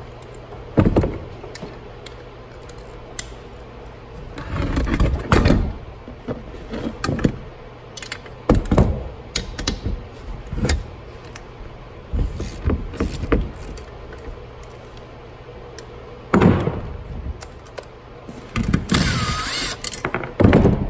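Metal tools clicking and clanking against a steel brake pedal bracket as a bolt is worked loose with a socket wrench. A cordless impact gun whirs briefly near the end.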